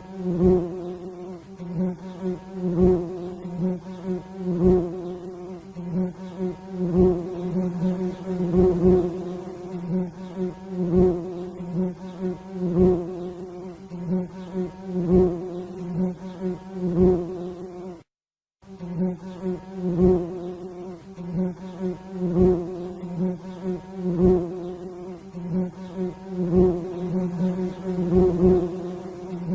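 Bee buzzing: a steady, low-pitched drone with regular louder swells about every two seconds, broken by a brief silent cut about 18 seconds in.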